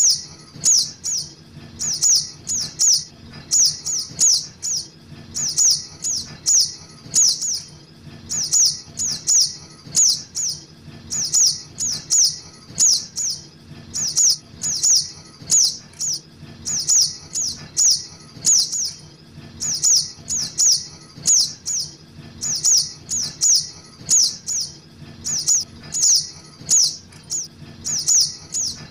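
Looped lure recording of juvenile sogok ontong (spiderhunter) calls: short, high, sharp chips repeated in quick clusters of three or four, about two to three a second, without a break.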